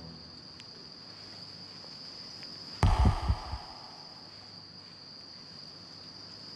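Crickets chirping in a steady high trill, broken about three seconds in by a single heavy thump that dies away within a second.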